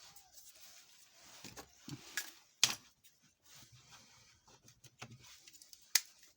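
Small plastic phone parts being handled on a repair bench: scattered light taps and clicks, with a sharp click about two and a half seconds in and another near the end.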